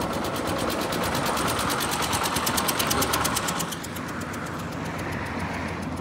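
An engine running with a fast, even knocking beat that eases off slightly about two-thirds of the way through.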